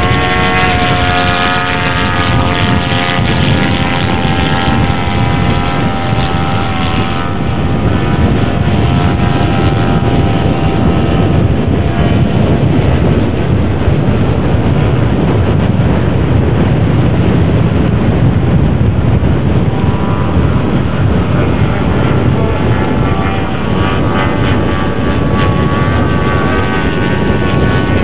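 Radio-controlled scale model aircraft engine buzzing in flight, its pitch dipping in the first several seconds and rising again near the end, over a steady rushing noise.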